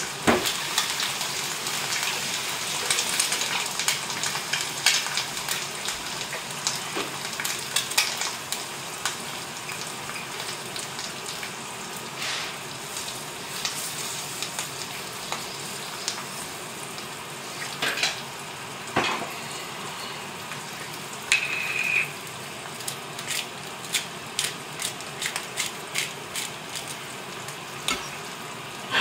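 An egg frying in butter in a cast-iron pan, sizzling steadily, with scattered taps and scrapes of a utensil against the pan. There is a short high tone about two-thirds of the way through, and a run of quick clicks near the end.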